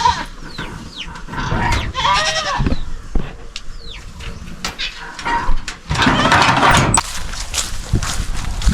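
A goat bleats once, a short wavering call about two seconds in, among the tethered livestock. About six seconds in comes a loud burst of rustling, with scattered small clicks and knocks throughout.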